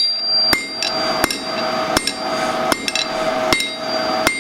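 A 3.5 lb rounding hammer striking hot square steel bar on an anvil, about one blow every 0.7 s, each with a clear metallic ring. These are half-on, half-off blows drawing out a four-sided taper to a point.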